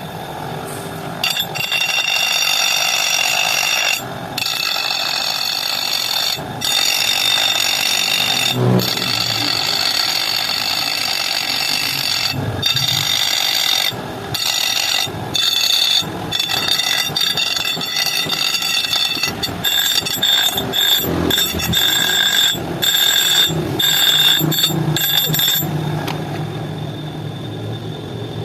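Angle grinder cutting or grinding metal, a steady high whine over rough grinding noise, broken by several short pauses as the tool is lifted off the work.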